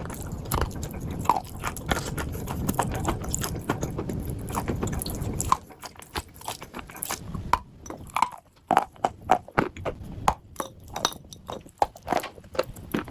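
Someone chewing and biting dry edible clay close to the microphone: a dense, continuous crunching for the first five seconds or so, then separate sharp, crisp crunches with short gaps between them.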